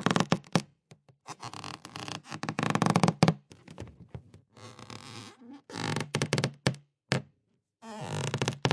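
Rubber balloon squeaking as it is rubbed and squeezed: a run of low, buzzing squeaks in about half a dozen bursts, each up to two seconds long, with short breaks between them.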